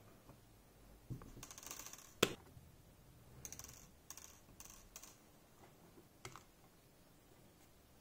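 Plastic clicks and rattles of a mechanical keyboard being taken apart by hand, with one sharp click about two seconds in and a few scattered clicks later.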